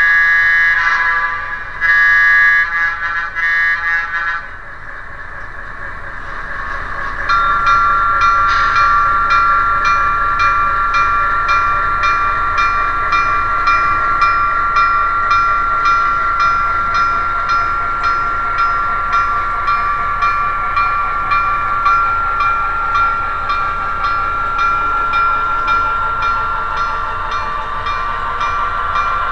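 QSI DCC sound decoder in an HO-scale SW7 diesel switcher model. Its horn sounds a series of short blasts in the first four seconds, then the diesel engine sound runs under a bell that rings steadily about twice a second from around seven seconds in.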